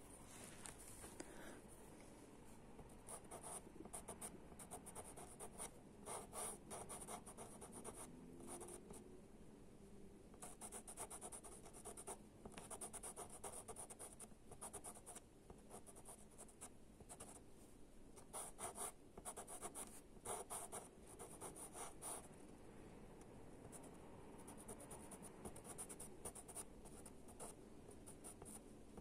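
Faint scratching of a pastel pencil tip on Pastelmat paper, in clusters of short, quick strokes with brief pauses between.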